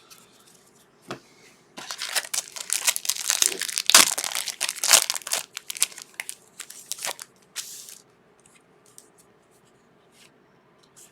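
Trading card pack wrapper being torn open and crinkled, a dense crackling that lasts about six seconds and peaks in the middle. It is followed by a few faint clicks of cards being handled.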